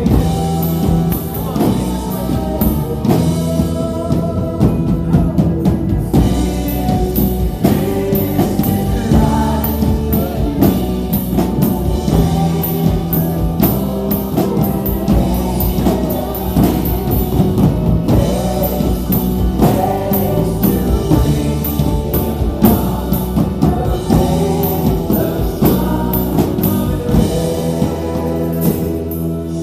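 Live worship band playing, with singing over electric guitars, bass, keyboard and drums, the drum and cymbal hits steady throughout.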